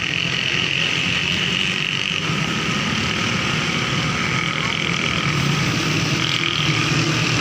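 A steady mechanical drone, like an engine idling, with a low hum and no breaks.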